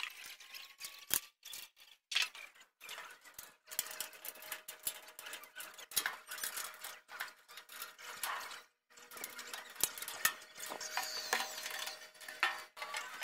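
White painted sheet-metal cabinet panels being handled and fitted together by hand: scattered light clicks, taps and scraping as the parts knock and slide against each other.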